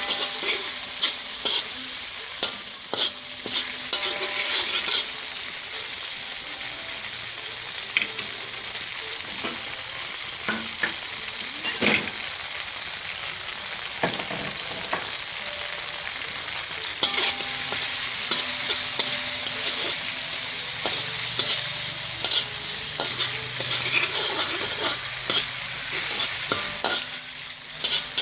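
Small shrimp frying in oil and chili sauce, sizzling steadily while a utensil stirs and scrapes the pan with frequent sharp clicks and taps. The sizzle gets louder about two-thirds of the way through.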